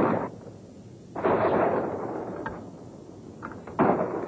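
Film-soundtrack explosions from TNT and gasoline drums being set off: a sudden loud blast about a second in that dies away over a second or so, and another sharp blast near the end.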